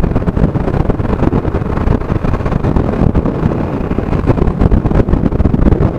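Wind rushing and buffeting over the camera microphone, with the Yamaha motorcycle's engine running underneath as it rides along at road speed.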